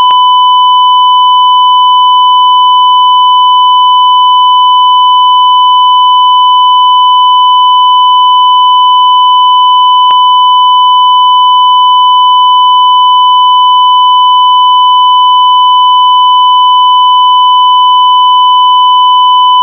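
Censor bleep: one loud, continuous tone held at a single steady pitch, with a faint click about halfway through.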